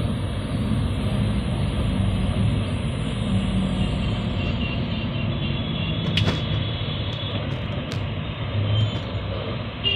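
Steady road and engine rumble of a moving car, heard from inside the car, with two brief clicks in the second half.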